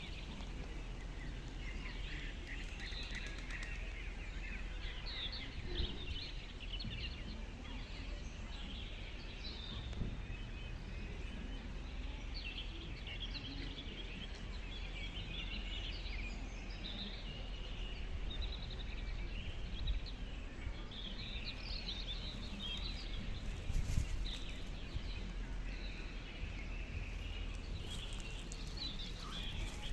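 Small birds chirping continually in many short, overlapping calls over a low steady rumble of outdoor background noise.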